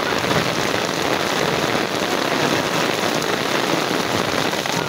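Heavy rain falling steadily on a wet paved lane, a dense even hiss.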